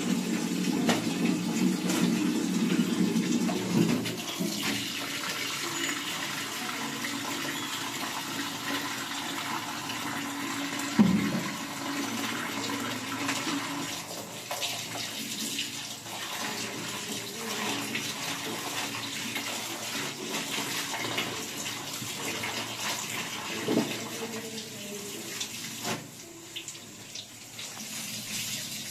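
Water running and splashing steadily, louder for the first few seconds, with a single sharp knock about eleven seconds in.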